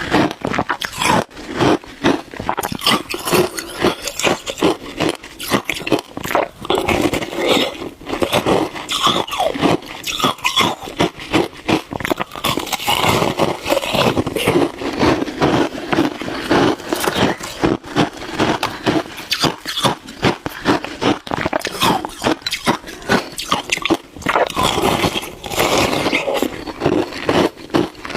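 Shaved ice being bitten and chewed close to the microphone: a dense, unbroken run of crunches.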